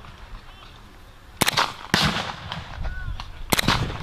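Three rifle shots, each a sharp crack with a trailing echo: the first about one and a half seconds in, the second half a second later, the third near the end.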